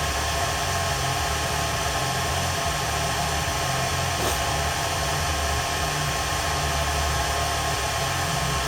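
Hair dryer running steadily on its low setting, blowing hot air into a cardboard box to soften action figures: an even rush of air with a faint steady whine.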